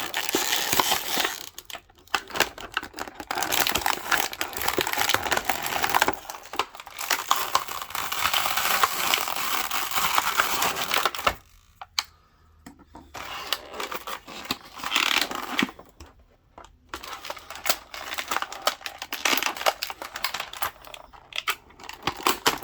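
Plastic toy packaging crinkling and crackling in irregular bursts, with sharp clicks and brief pauses, as action-figure accessories are pulled free of their plastic tray.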